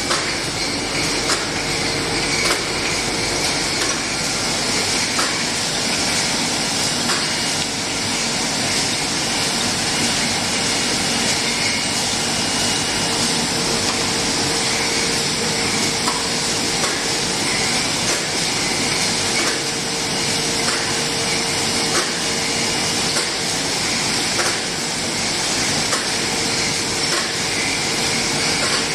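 Automatic bottle sleeving and shrink-tunnel line running: a steady machine hum and hiss with a faint held tone and irregular light clicks.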